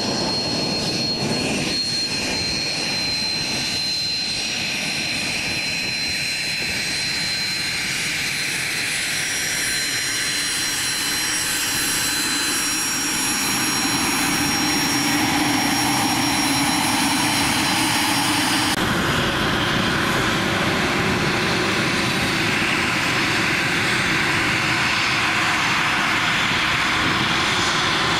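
Gulfstream G550 business jet's twin Rolls-Royce BR710 turbofan engines running: a steady rush with thin high whines. The sound gets a little louder around the middle and changes abruptly about two-thirds through.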